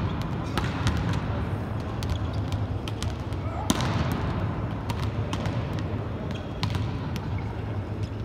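Volleyballs being spiked and bouncing off the court: a scattered series of sharp smacks echoing around a large hall, the loudest a little over halfway through, over a steady low hum and some voices.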